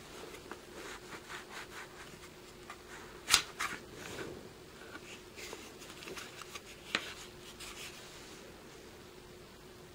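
Taurus PT640 Pro pistol being worked in and out of a polymer paddle holster: hard plastic rubbing and scraping against the gun's slide, with a sharp click about three and a half seconds in, the loudest sound, and a smaller click near seven seconds.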